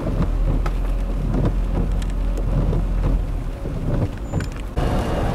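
Heavy rain pattering on a car's windshield and roof, heard from inside the car, over a steady low rumble. Near the end it cuts abruptly to a different, steadier noise.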